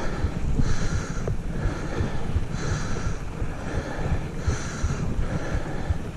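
Mountain bike rolling over loose gravel and sand, with wind rumbling steadily on the action camera's microphone and a hiss that swells and fades about once a second.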